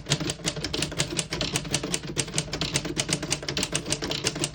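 A 1936 Corona Standard portable manual typewriter being typed on: a quick, even run of keystrokes, several a second, the type bars clacking against the platen.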